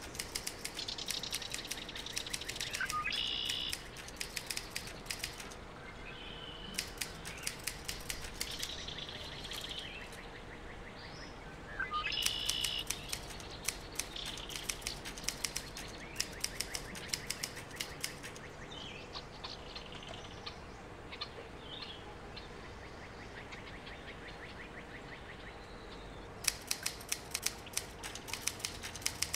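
Manual typewriter keys clacking in bursts of quick strokes with pauses between, sparser through the middle and dense again near the end. Small birds chirp between the bursts.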